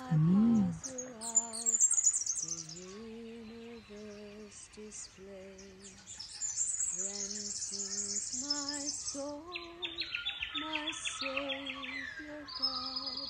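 Wild birds chirping and trilling at dawn: a fast run of high chirps, then a lower rapid trill, ending in a short falling call. Underneath, a woman's voice hums or sings a slow melody in long held notes.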